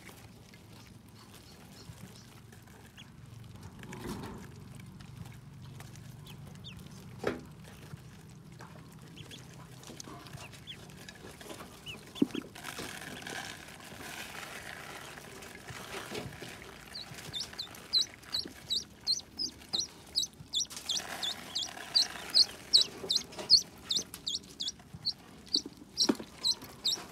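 Newly hatched ducklings peeping: a few faint scattered peeps at first, then from a little past halfway a fast run of loud, high peeps, several a second.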